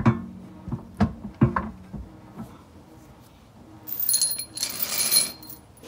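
New steel Curt trailer hitch receiver knocking against the vehicle's underbody as it is offered up into place: several sharp metallic clanks with a brief ring in the first two seconds. About four seconds in comes a longer scraping sound.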